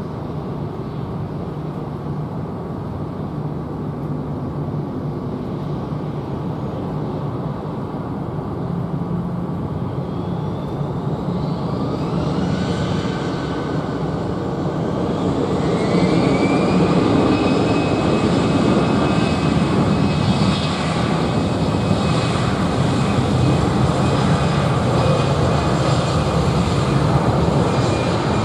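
Boeing 767-300's twin turbofan engines spooling up, with a steady low rumble. A whine rises in pitch around 12 seconds in and again near 16 seconds, then holds steady as the engine noise grows louder.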